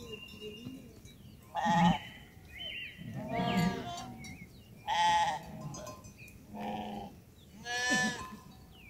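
Livestock bleating: five separate calls with a wavering pitch, about one every one and a half seconds.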